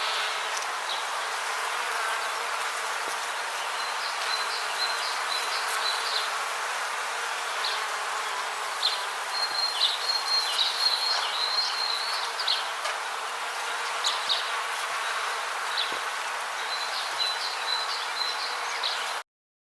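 Rainforest ambience: a steady hiss under bursts of rapid, high chirping trills that come and go every few seconds. The sound cuts out suddenly just before the end.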